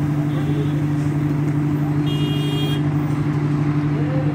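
Steady drone of a large engine running at an even speed, with a brief high-pitched vehicle horn toot about two seconds in.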